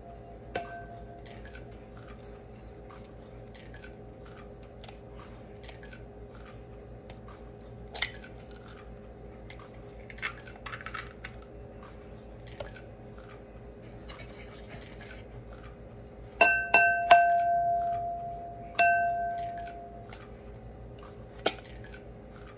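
An egg knocked against the rim of a porcelain bowl to crack it. There is one sharp knock early on and three more close together later, each leaving the bowl ringing with a clear tone that dies away over a second or two. Light clicks and taps of eggshell come in between, over a steady low hum.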